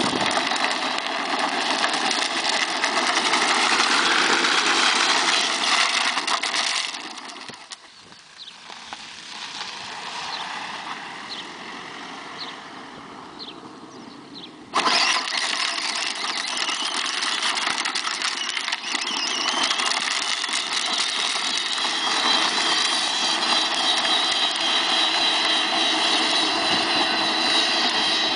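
Peg Perego battery-powered ride-on toy jeep driving, its electric motors and plastic gearboxes whining steadily with the hard plastic wheels rolling over the road. The sound drops away about a quarter of the way in and comes back suddenly about halfway through.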